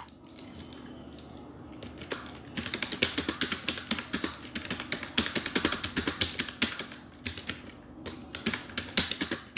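Computer keyboard being touch-typed in a fast, continuous run of keystrokes, the typing pace of a typing-speed test at around 50 words per minute. The keystrokes are faint for the first couple of seconds, then louder.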